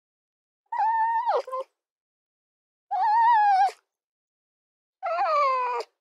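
Red fox giving three drawn-out, wavering whining calls, each just under a second long and about a second apart; the last one falls in pitch.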